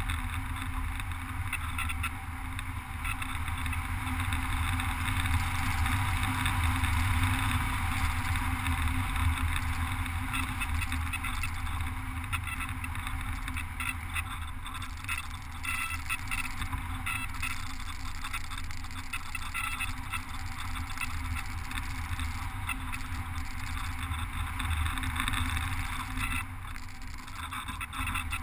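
Steady rush and rumble of airflow over a GoPro mounted on top of an RC glider's fuselage in flight.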